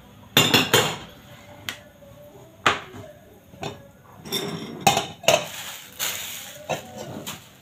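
Dishes and cutlery clinking and knocking on a kitchen counter as food is served, a run of separate sharp knocks, with a brief rustle about six seconds in.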